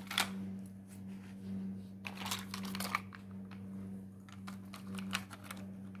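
Hard plastic toy trucks clacking and knocking against each other and against a wicker basket as they are packed in, in a few clusters of clicks, over a steady low hum.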